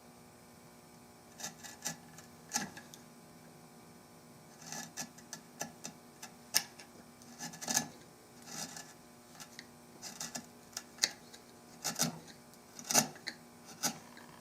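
Hand tool cutting and scraping curly walnut stock wood in short, irregular strokes with pauses between them, over a faint steady hum.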